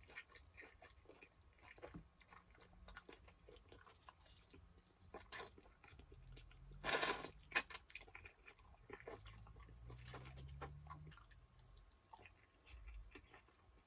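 Close-up chewing and biting of chicken wings: soft wet mouth clicks and crunches, with one louder noisy burst about seven seconds in.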